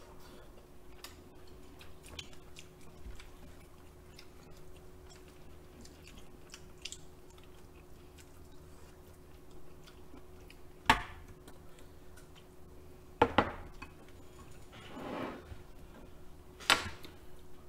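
People eating at the table: quiet chewing and small mouth clicks, with sharp clinks of utensils against a metal pot and dishes, three loud ones in the second half.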